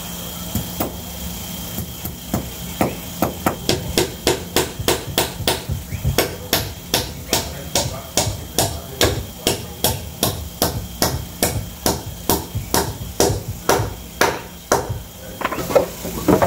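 Hammer driving nails through a wooden tabletop into a log table leg: a steady run of sharp strikes, about three a second, with a short pause near the end.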